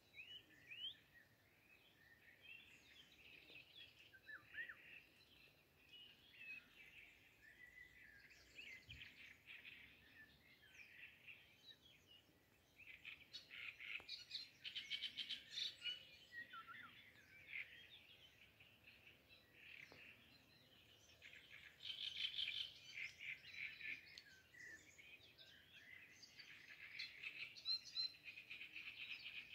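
Faint, continuous high-pitched song and chirping of small songbirds, with louder fast trills about 14 seconds in, again about 22 seconds in, and near the end.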